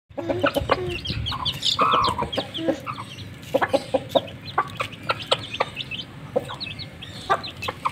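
Hen clucking low and briefly to her chicks as they feed, typical of a mother hen's food call, over many high, falling peeps from the chicks. Sharp clicks come in among them.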